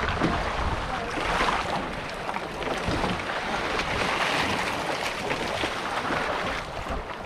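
Sea water sloshing and splashing around a small boat and a bamboo fishing raft, with wind on the microphone.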